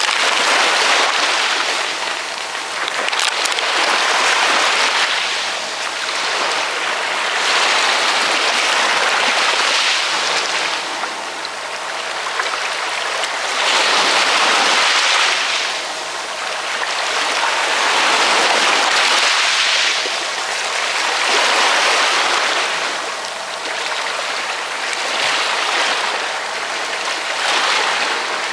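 Ocean waves washing in, the surf noise swelling and fading again every few seconds.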